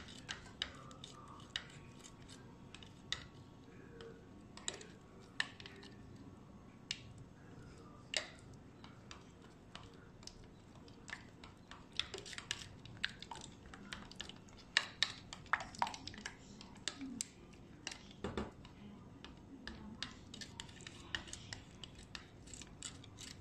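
White plastic spoon clicking and scraping against the sides of a clear plastic measuring cup while stirring gelatin into hot orange juice to break up the remaining lumps. Irregular light clicks, a few a second, with a few louder knocks in the middle.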